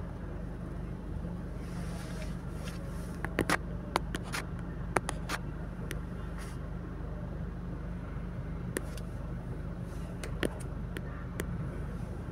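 Car cabin rumble while riding in traffic, a steady low hum, with a few sharp clicks scattered through the middle.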